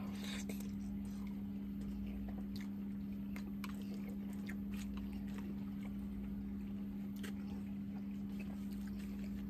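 A person chewing a mouthful of pasta, with faint scattered clicks of a fork against a plate, over a steady low hum.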